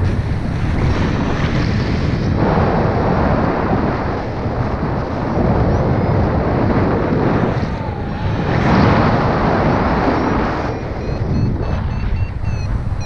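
Airflow rushing over the microphone of a camera carried by a paraglider pilot in flight, a loud steady buffeting that swells twice.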